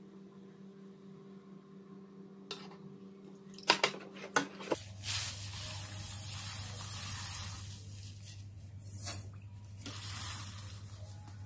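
Granulated sugar poured from a plastic bag into a plastic ladle, a hiss of falling grains in two runs. Before it come a few sharp clicks.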